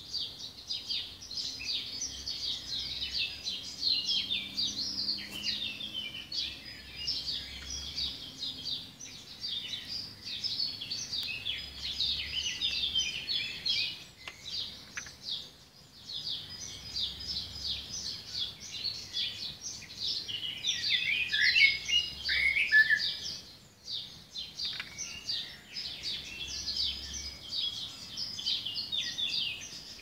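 Morning chorus of birds: many small birds chirping and singing over one another in quick, overlapping high notes, with short lulls about halfway through and again later on.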